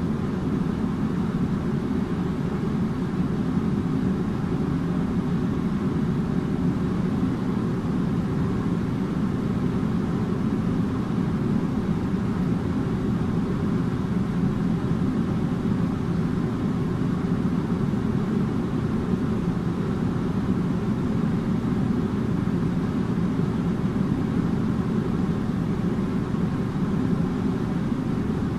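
Air conditioner running steadily: a constant deep hum and rush of air, with a few faint steady tones above it.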